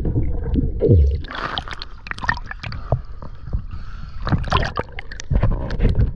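Water sloshing and gurgling against a waterproof camera as it is moved underwater and up through the choppy surface beside a boat hull, with bubbly crackles and splashes and a low churning rumble.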